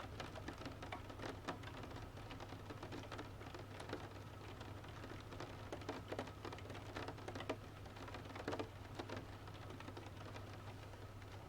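Wood fire crackling in a stove, with irregular sharp pops and snaps, over steady rain patter and a low, steady hum.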